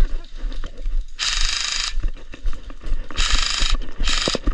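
Airsoft rifle firing on full auto in three bursts: a longer rattling burst about a second in, then two shorter ones near the end.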